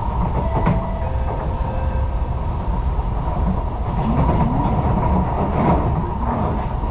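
Singapore MRT train running between stations, heard from inside the carriage: a steady low rumble of wheels on rail with a steady whine over it, and a sharp click about a second in.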